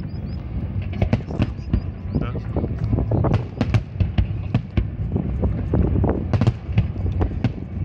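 Fireworks display going off: a dense run of sharp bangs and crackles, several a second, over a continuous low rumble.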